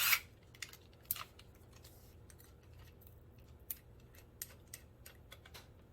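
Scattered small clicks and taps of hands handling a PVC pipe and small hardware, with a short rustle at the start and a sharper click about a second in.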